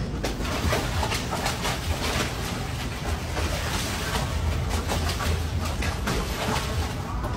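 A dog pawing at the water in a plastic kiddie pool, splashing again and again.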